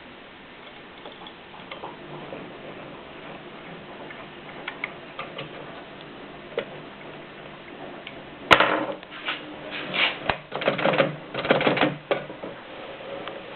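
Mignon index typewriter in use. Faint scattered clicks give way, past halfway, to one sharp loud clack and then a few seconds of louder clattering mechanism strokes.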